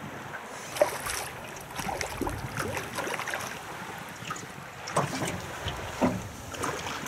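Knocks and rustling from a spinning rod, reel and boat as a hooked pike is reeled in and landed, over wind and water noise; the sharpest knocks come about a second in and again around five and six seconds.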